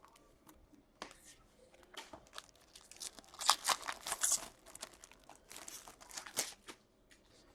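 Trading-card pack wrapper being torn open and crinkled, in irregular crackling bursts, loudest around the middle and again a little later, with light clicks of cards being handled.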